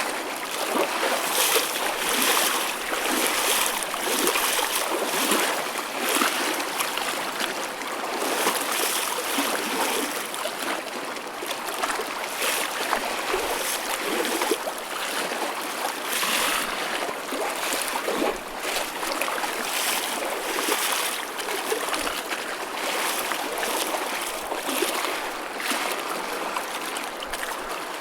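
Choppy ocean waves breaking and washing, a continuous rushing of water with frequent small splashes and no slow surges.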